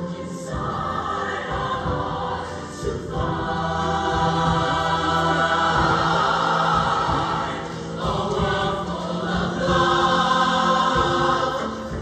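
Large mixed show choir singing held chords, the harmony shifting to a new chord every two to three seconds.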